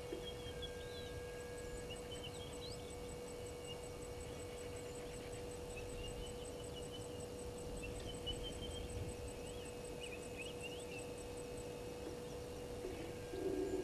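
Bush ambience: a steady electrical hum under scattered small-bird chirps and an insect ticking high and evenly about five times a second. A brief low sound comes near the end.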